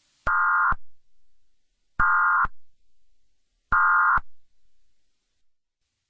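Emergency Alert System digital data tones: three identical short, harsh electronic bursts about a second and a half apart, each trailing off in a brief echo. Coming at the close of the alert, they are the end-of-message signal that ends the broadcast.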